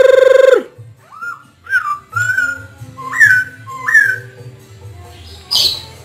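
Masked laughingthrush (poksay Hongkong) singing: a series of clear whistled notes that glide up and down, after a loud steady held tone that cuts off about half a second in.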